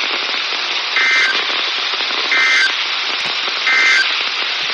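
Weather radio static hiss with three short, identical two-tone digital data bursts about 1.3 seconds apart. These are the Emergency Alert System SAME end-of-message code sent right after a warning broadcast ends.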